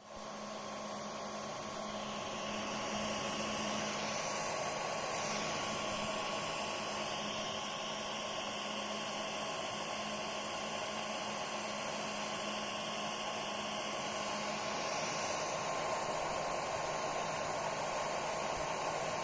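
Steady fan whir of a 3D printer with a laser module mounted, with a steady high whine running through it.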